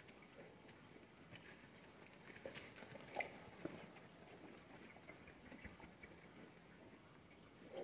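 Near silence with faint, scattered hoof scuffs and ticks from Hartmann's mountain zebras shifting about on the gravel at the waterhole, a few slightly clearer about three seconds in.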